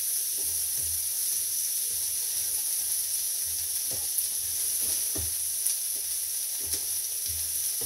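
Chopped vegetables sizzling in butter on a hot electric griddle preheated to 400 degrees, with a steady frying hiss. A plastic spatula stirs them, making a few faint scrapes and ticks.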